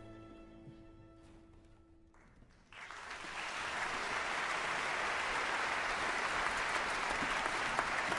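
The last held chord of an orchestra with solo violin fades away, then an audience breaks into applause about three seconds in and keeps clapping steadily.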